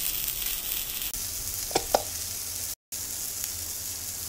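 Red snapper fillets shallow-frying in hot oil on a flat pan: a steady, high hissing sizzle, with two short clicks a little under two seconds in.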